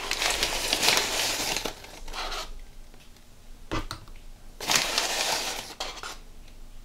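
Paper liner inside a cardboard cornstarch box crinkling as it is pulled open, in two bursts of rustling with a single knock between them.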